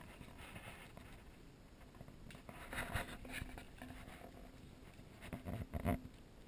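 Soft scuffing and rubbing close to the microphone as a bulldog puppy noses and mouths at a toy on a shaggy rug, with a few knocks about three seconds in and a louder cluster near the end.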